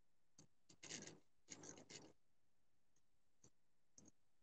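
Near silence, with a few faint short clicks and rustles.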